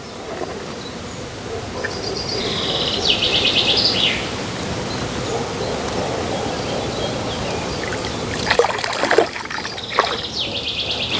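A songbird sings a fast, rapidly repeated trill twice, about two seconds in and again near the end, over a steady background noise.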